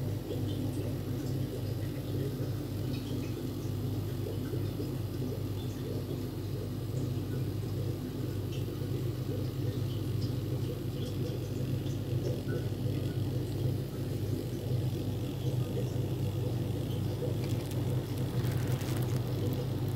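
Steady low mechanical hum, with faint scattered ticks over it.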